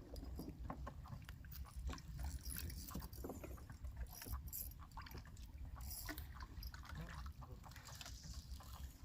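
Low steady rumble with scattered small clicks and taps, at no regular rhythm.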